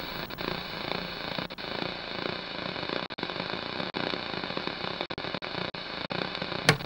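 Steady hiss of noise, broken by brief dropouts, with a short sharp burst near the end.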